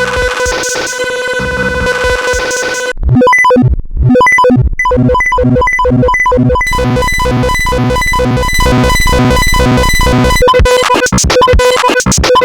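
Loud layered electronic cacophony: many synthesized tones and sound effects played on top of each other. A steady held tone for the first few seconds, then from about three seconds in a rapid chopped pulsing with beeping tones running through it.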